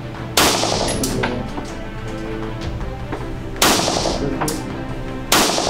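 Live pistol shots at an indoor range, spaced out in a timed rapid-fire string: three loud shots, one just under half a second in, one about three and a half seconds in and one near the end, each ringing briefly. Background music plays under them.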